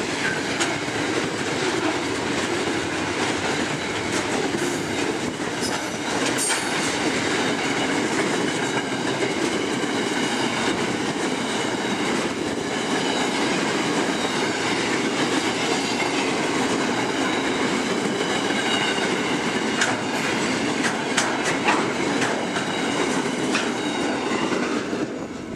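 Freight train wagons rolling past at close range: a steady rumble and clatter of steel wheels on rail, with occasional clacks and a thin high wheel squeal running through it. The last wagons go by near the end.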